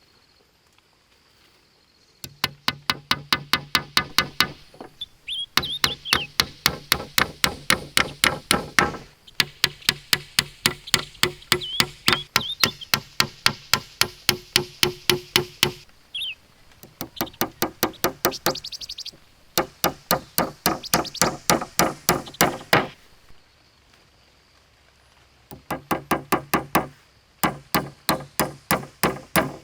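Rapid, evenly paced strikes on a hard object, about five a second, in runs of several seconds broken by short pauses.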